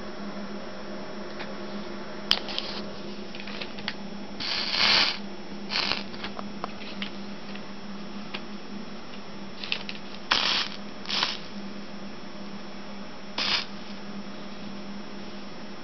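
Several short rustling, scraping noises of handling at the worktable, over a steady low electrical hum, with one sharp click about two seconds in.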